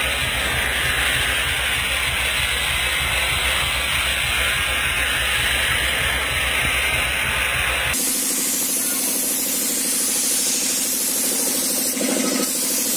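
Gravity-feed paint spray gun hissing steadily as it sprays paint. About eight seconds in, the sound cuts to a different spray hiss over a steady low hum.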